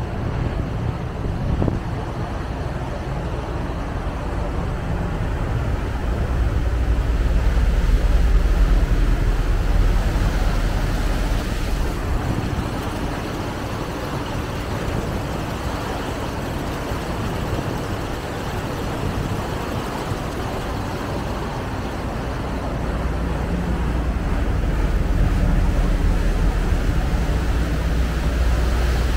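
Steady low rumble of a lake passenger ship under way, with water rushing along the hull in its churning wake. It swells twice, about a third of the way in and again near the end.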